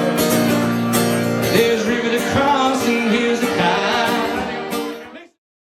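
Live country-rock music with guitar and singing, played loud over a beat. It cuts off abruptly about five seconds in, into dead silence.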